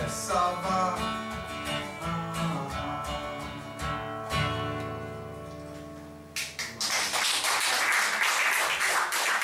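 Acoustic guitar playing the closing bars of a song, ending on a final chord about four seconds in that rings out and fades. Then an audience applauds.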